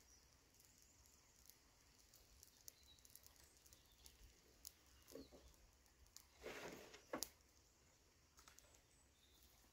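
Near silence, with faint scattered clicks and a short soft noise about six and a half seconds in, followed by a sharper click.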